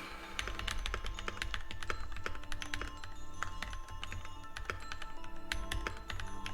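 Fast typing on an NK65 mechanical keyboard fitted with creampaca linear switches (Durock housings with cream stems) and Cherry-profile keycaps: a quick, irregular run of keystroke clacks several times a second, over background music.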